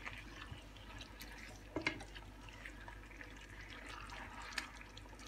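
Chicken wings in thick sweet chilli sauce being stirred with a silicone spatula in a frying pan: faint wet squelching of the sauce, with a couple of light taps of the spatula against the pan.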